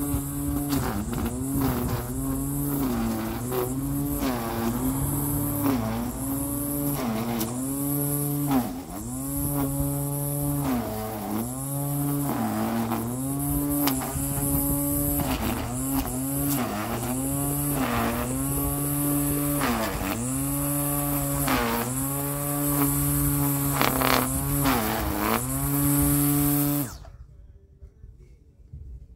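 String trimmer motor running steadily, its pitch dipping briefly every second or two as the line cuts into grass, then switched off shortly before the end.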